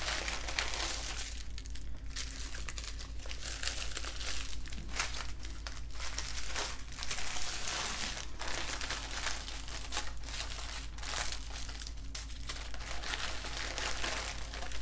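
Small plastic baggies of diamond-painting drills crinkling and rustling steadily as they are handled and sorted through.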